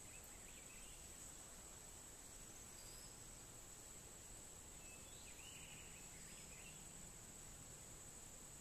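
Near silence: faint outdoor ambience with a steady high insect drone and a few faint bird chirps.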